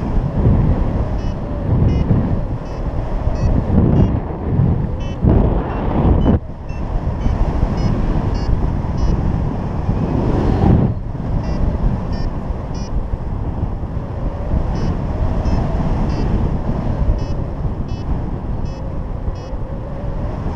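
Airflow buffeting the microphone of a paraglider pilot's camera in flight. Over it a variometer beeps in short tones, about two to three a second, the vario's signal that the glider is climbing.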